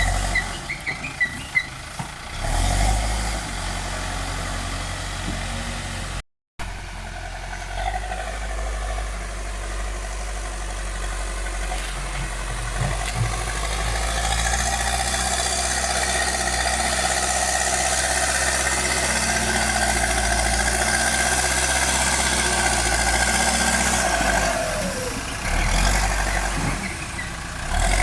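Bull backhoe loader's diesel engine running steadily, with a brief dropout of all sound about six seconds in.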